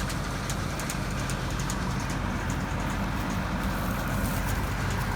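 Diesel engine of farm harvest machinery running steadily at constant speed, with scattered faint ticks over the hum.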